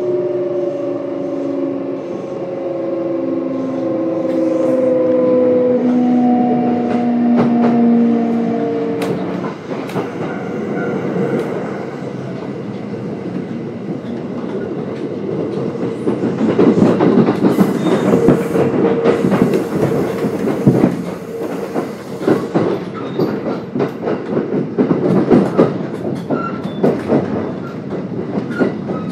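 Kintetsu 1031 series train's Hitachi GTO-VVVF inverter sounding in several tones that fall in pitch as the train brakes, cutting out about nine seconds in. After that, the wheels clatter over rail joints and points, with sharp clicks that grow louder later on.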